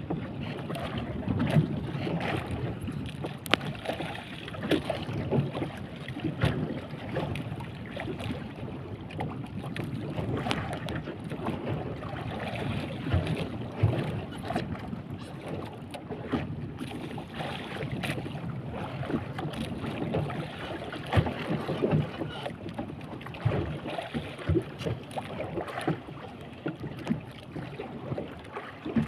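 Choppy sea water slapping against the hull of a small fishing boat, with wind buffeting the microphone. Irregular sharp knocks are scattered throughout.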